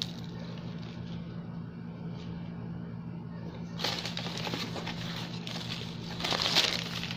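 Packing paper rustling and crinkling as hands dig through it in a cardboard box, starting about four seconds in and loudest near the end, over a steady low hum.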